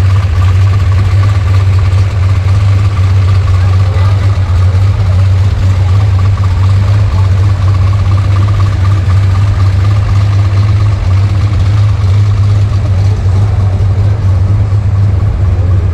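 Chevrolet Opala Comodoro's naturally aspirated, tuned 4.1-litre inline-six with loud exhaust running steadily at idle, a loud, even, deep drone with no revving.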